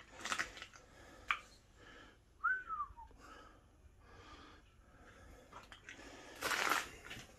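A person breathing close to the microphone, with a short falling whistle about two and a half seconds in and a louder breath or sniff near the end.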